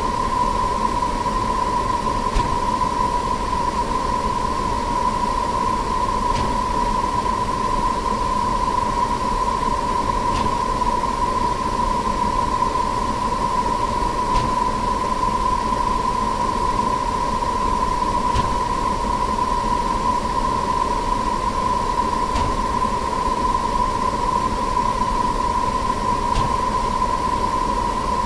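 A steady, dense wash of noise from many sound effects sped up far past recognition and piled on top of one another, with one held tone running through it and faint clicks about every four seconds.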